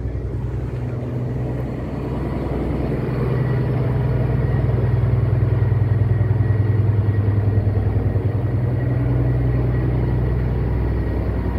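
Passenger cruise boat's engine running steadily, a low rumble that grows a little louder through the middle.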